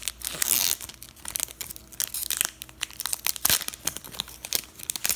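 Foil Pokémon booster pack being torn open and crinkled by hand, a run of sharp irregular crackles.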